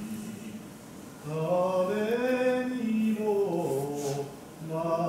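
A man's voice chanting long, drawn-out phrases whose pitch slowly rises and falls, starting about a second in, with a brief pause for breath near the end.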